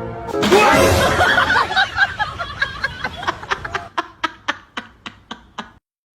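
Person laughing: a loud burst of laughter that trails off into short, evenly spaced laughs, fading and then cutting off just before the end.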